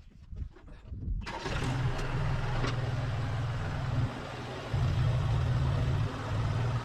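Tractor engine coming in abruptly about a second in and running steadily, its level dipping briefly twice.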